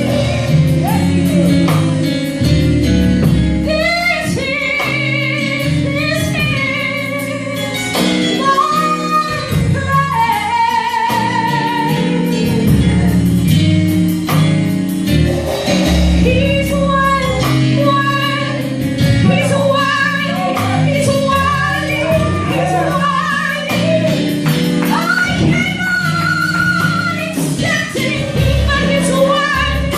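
Gospel music: a solo singer holding long notes with vibrato over live instrumental accompaniment of sustained chords and bass.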